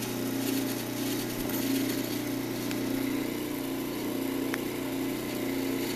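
Delta 46-700 variable-speed wood lathe running steadily at about 1250 RPM, its motor and drive giving an even hum. Two faint ticks come about two and a half and four and a half seconds in.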